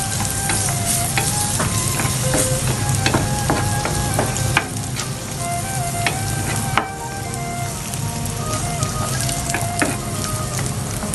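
Cashew nuts and dates sizzling in hot oil in a pan while being stirred, with the spoon clicking against the pan again and again.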